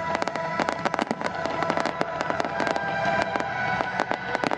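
Fireworks going off in a dense, rapid string of sharp cracks and pops, several each second, with music playing underneath.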